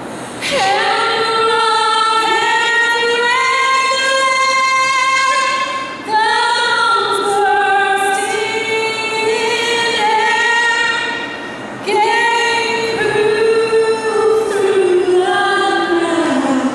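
A woman singing in three long, held phrases, with the pitch stepping and sliding between sustained notes and short breaks for breath twice.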